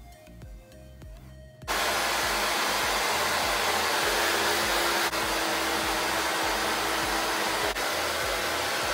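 Handheld hair dryer switched on about two seconds in and then blowing steadily at full power, drying wet hair. Two faint clicks are heard partway through, with slight dips in level. Quiet background music plays before it starts.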